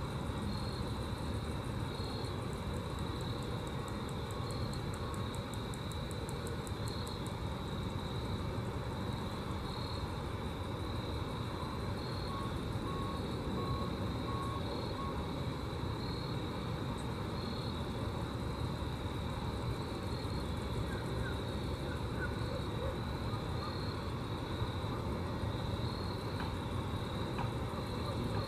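Grasshoppers stridulating in a steady high-pitched buzz with short pulses repeating every second or two, over a steady low rumble.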